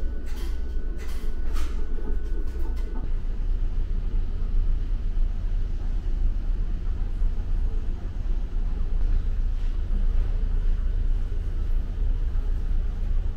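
Steady low drone of a ferry's engines running, carried through the ship's interior. Over the first three seconds there are a few clicks and a thin high tone, which stop about three seconds in.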